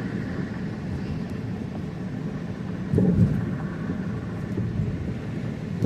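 Low, steady vehicle rumble, swelling louder about three seconds in.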